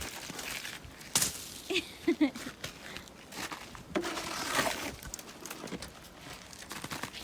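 Ice-crusted snow, glazed by freezing rain, crunching and breaking as it is cleared, with scraping and a few sharp cracks, the strongest about a second in.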